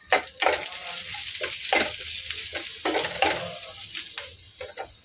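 Chopped onions, chilli flakes and oregano sizzling in hot oil in a non-stick kadai, stirred with a wooden spatula: a string of short scraping strokes over a steady sizzle.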